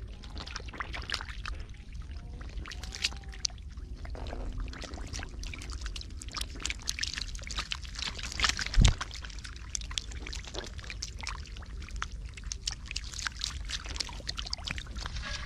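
Catfish thrashing in a shallow muddy puddle: a dense, irregular run of wet splashes and slaps over a steady low rumble, with one heavy thump about nine seconds in.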